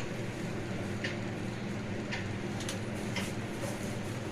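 A few faint, short clicks, about four, scattered over a steady low hum.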